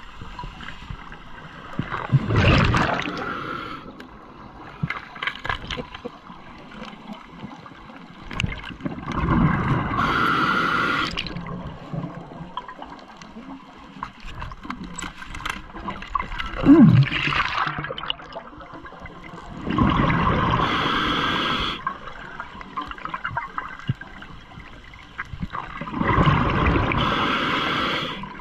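Scuba regulator breathing underwater: the hiss of inhaled breaths and the gurgling rush of exhaled bubbles, about five breaths a few seconds apart, with faint clicking between them.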